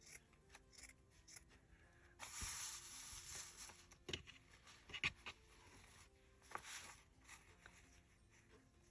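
Quiet paper handling: paper rubbing and sliding for about a second and a half, starting about two seconds in, followed by a few soft clicks.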